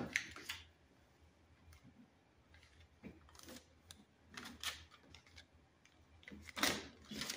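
Handling noise: a few scattered rustles and light knocks as balls of yarn are moved in and out of clear plastic storage bins.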